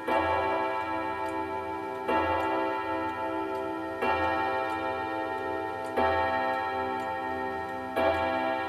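Mauthe three-train wall clock striking on its gong rods, one ringing stroke about every two seconds, each dying away before the next. The pendulum's escapement ticks faintly underneath.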